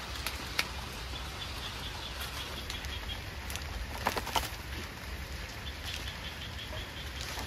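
Rustling and a few sharp knocks as coconut palm fronds and flower stalks are pushed and handled, over a steady hiss. A faint, rapid high ticking comes twice in the background.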